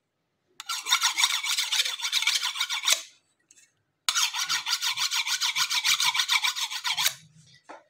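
A steel kitchen knife blade is drawn rapidly back and forth along a honing steel, making quick metal-on-metal scraping strokes. They come in two runs of about two and a half and three seconds, with a pause of about a second between them.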